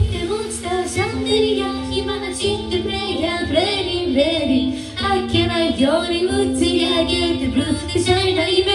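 Music: a song with a high singing voice over held chords, in a quieter passage where the heavy bass and drums drop out.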